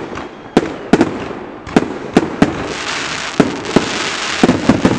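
Aerial fireworks bursting overhead: a string of sharp bangs, about ten in five seconds, with a hissing crackle filling the gaps about halfway through.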